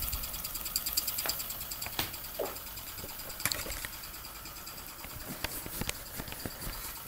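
Mamod TE1A model steam traction engine running, its small steam engine ticking in a fast, even rhythm, with a few sharper clicks later on.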